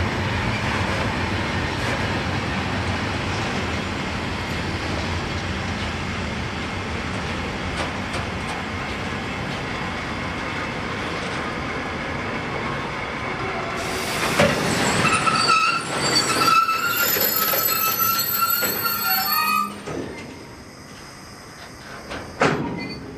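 Freight train of sliding-wall covered wagons rolling slowly past with a steady rumble of wheels on rails. About two-thirds of the way through the wheels set up a high squeal as the train slows, then the sound drops away suddenly as it stops, with a single knock near the end.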